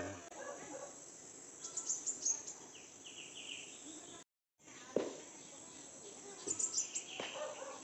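Steady high-pitched chorus of insects, with two short clusters of sharper chirps or scrapes, one about two seconds in and one near the end. The sound breaks off completely for a moment a little past the middle.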